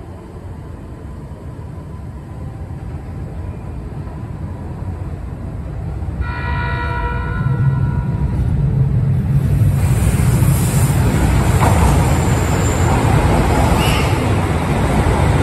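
Train arriving at a station platform: a low rumble building steadily, a horn sounded for a second or two about six seconds in, then the loud rush of the cars passing close by near the end.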